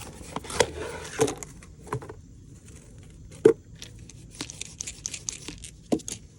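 Handling noises: irregular clicks and rustling, with one sharp knock about three and a half seconds in.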